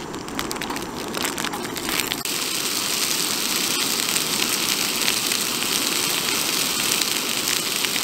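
A few light clicks and knocks, then from about two seconds in a steady, crackling sizzle as small Nürnberger sausages fry in hot oil in a pan over a gas canister stove.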